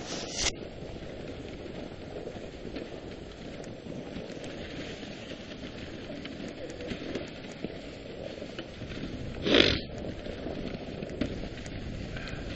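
Dog sled runners hissing and scraping steadily over a packed snow trail while the team pulls. Two short, loud rushes of noise break in, one right at the start and one about ten seconds in.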